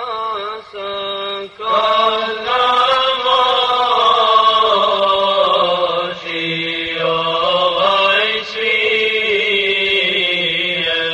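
Arabic nasheed chanted by voice, with long, drawn-out melodic notes over a lower held note; it swells louder about two seconds in.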